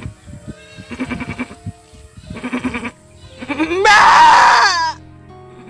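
A man's voice imitating a nanny goat bleating while giving birth: three wavering bleats, the last much louder and longer, about four seconds in. Background music plays underneath.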